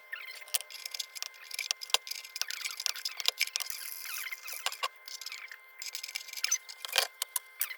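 Pliers clicking and scraping against a lantern's sheet-metal fount, working through the filler hole after a loose cork inside: an irregular run of small metallic clicks and rattles, with sharper clicks about two seconds in and near the end.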